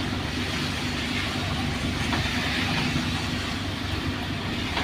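Isuzu Giga truck's 6WA1 diesel engine running steadily under way, heard from inside the cab, with a steady hiss of wet tyres and rain from the road.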